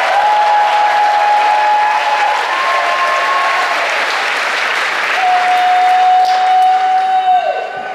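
Large congregation applauding, with long drawn-out cheers held over the clapping.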